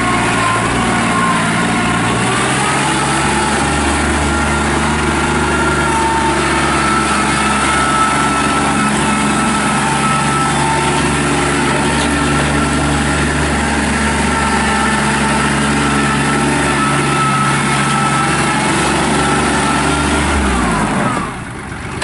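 Kubota L3800 compact tractor's three-cylinder diesel engine running steadily as the tractor drives and works its loader. The drone climbs in pitch over the first two seconds, holds, and drops back near the end.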